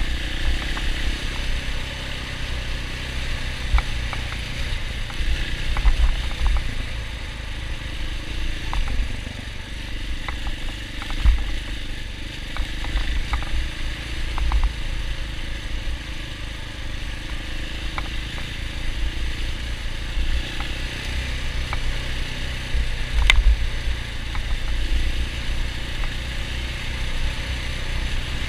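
KTM 690 Enduro R's single-cylinder engine running as the bike rides a rough dirt lane, under a heavy low rumble, with scattered knocks and clatters from the track.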